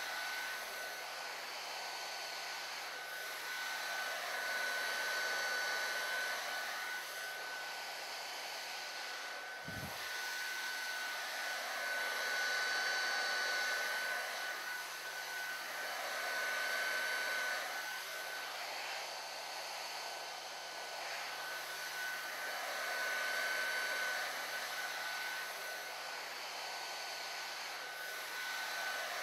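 CV-1981 heat gun blowing hot air with a steady high whine while heat-shrinking a molded boot. Its sound swells and fades slowly as it is moved along the part.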